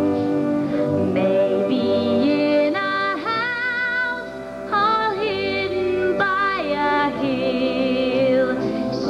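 A woman singing a show tune into a microphone over instrumental accompaniment, holding long notes with vibrato.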